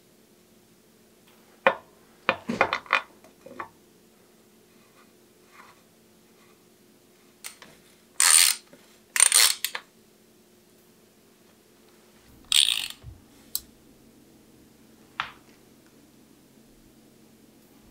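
Metal tools clinking and a few short rasping scrapes while a bottom bracket is threaded into a bike frame's bottom bracket shell and tightened with a bottom bracket tool and wrench. There are scattered clicks near the start, two louder rasps about a second apart near the middle, and another a few seconds later.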